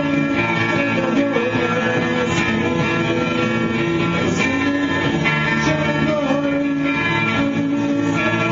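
Electric guitar played through an effects pedal and a Behringer Xenyx 1202 FX mixer, with a man singing along into a microphone, both heard through the speakers. The chords ring steadily under a wavering sung melody.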